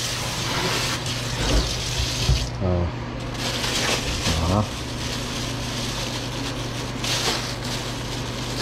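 Water spraying from a pull-down kitchen faucet onto a stainless steel sink and its wire grid, cutting off about two and a half seconds in.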